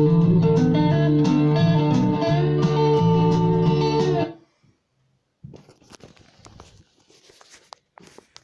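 Rough home demo recording of guitar and bass playing back from a CD player over room speakers, cutting off suddenly a little over four seconds in as the player is stopped. Faint rustling and handling clicks follow.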